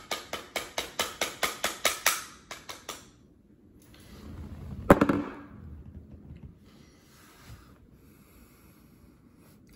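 Plastic-faced mallet rapping quickly and steadily, about five blows a second for some three seconds, driving a replica 1860 snub-nose revolver's barrel onto its cylinder arbor. The fit between barrel and arbor is too tight for it to slide on by hand. A single louder knock comes about five seconds in.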